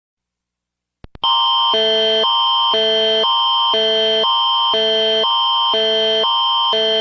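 Canadian Alerting Attention Signal (the Alert Ready tone): a steady high tone under two chords that switch back and forth every half second. It starts about a second in after a couple of brief clicks and signals that an emergency alert message is about to be broadcast.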